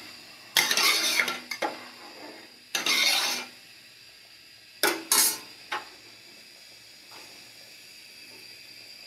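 Metal spoon stirring and scraping through rice and water in a metal cooking pot, in a few short separate strokes during the first six seconds, after which only a faint steady hiss remains.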